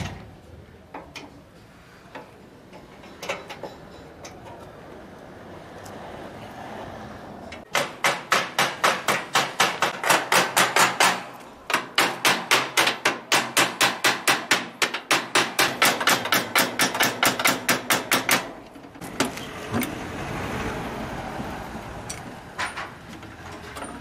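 Rapid, steady hammering on the metal of a coal stove, about four blows a second for some ten seconds, starting about eight seconds in with a short break midway. Scattered knocks and clanks of work on the stove come before and after.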